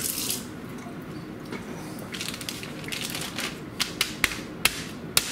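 Plastic wrap crinkling and rustling as it is spread and smoothed by hand on a countertop, with several sharp taps and clicks in the last second and a half.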